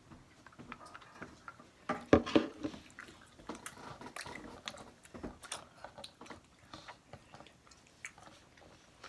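Someone chewing candy: scattered small wet clicks and crunches, with a louder burst about two seconds in.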